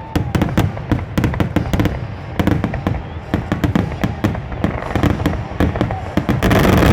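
Aerial fireworks going off in rapid succession, a dense stream of bangs and crackles. It grows louder and thicker about six and a half seconds in.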